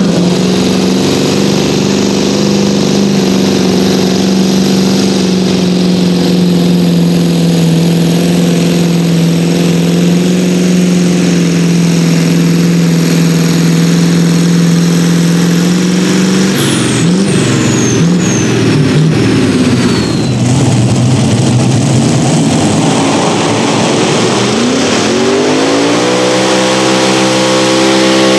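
A pulling tractor's engine runs hard at full throttle at a steady pitch, with a high whine above it. About 16 seconds in the throttle comes off: the engine note breaks and drops, and the whine falls away in several downward glides. Near the end a modified multi-engine pulling tractor revs up, rising in pitch.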